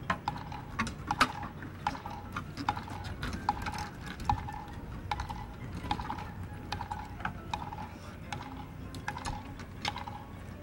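Drumsticks and snare drum hardware clicking and tapping: scattered sharp clicks at an irregular pace, a few a second.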